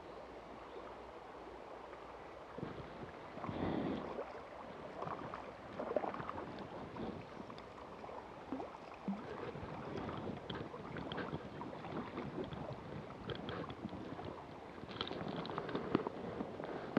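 Shallow river water sloshing and splashing close by as someone wades through it, with irregular splashes and knocks from the steps, a few louder ones near the end as the wader nears the bank.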